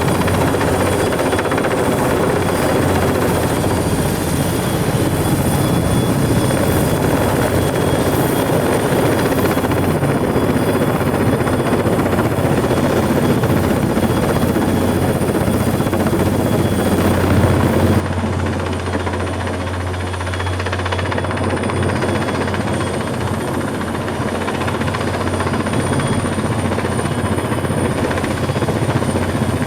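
Sikorsky S-58ET helicopter running on its Pratt & Whitney Canada PT6T-3 Twin-Pac turboshaft: steady rotor noise with a steady high turbine whine. About two-thirds through, the sound changes abruptly and becomes somewhat quieter.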